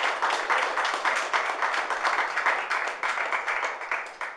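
Crowd applauding, many hands clapping, slowly dying down and cutting off near the end.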